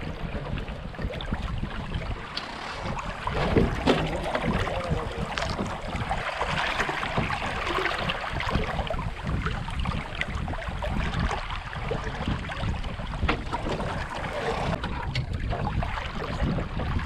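Water rushing along the hull of a Flying Dutchman sailing dinghy under sail, with wind buffeting the microphone.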